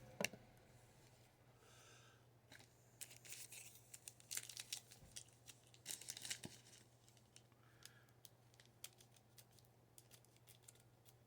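Faint handling of baseball cards and their pack wrapping: soft rustling and swishing papery sounds from a couple of seconds in to about two-thirds through, then scattered small ticks and clicks.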